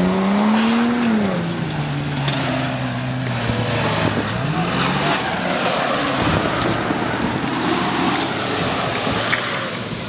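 Toyota Land Cruiser 4x4's engine revving up hard in the first second, then running at varying revs as the truck churns through a mud pit, with mud and water splashing around it.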